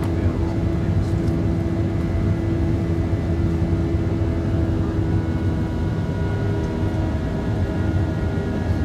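Cabin noise of a Boeing 737-800 climbing after takeoff: its CFM56-7B turbofan engines make a steady low rumble, with several steady hum tones on top.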